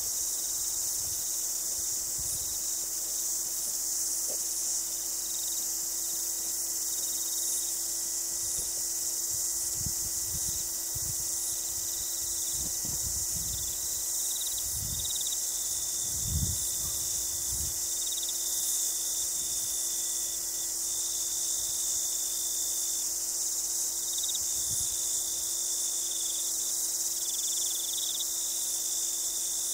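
A steady high-pitched chorus of insects, with irregular low gusts of wind buffeting the microphone, strongest around the middle.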